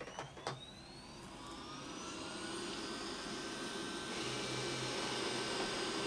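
Roborock S5 Max robot vacuum starting a cleaning run as it drives off its dock. It gives two clicks right at the start, then its suction fan spins up with a rising whine that grows steadily louder and levels off about four seconds in.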